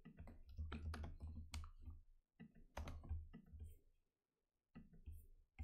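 Computer keyboard typing: a quick run of key clicks that stops about four seconds in, then a few more clicks near the end.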